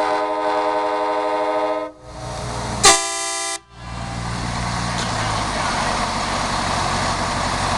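Nathan Airchime K5LA five-chime train horn, run off a bus's air system, sounding a long chord that cuts off about two seconds in. About a second later comes one short, loud horn blast, followed by a steady rushing noise.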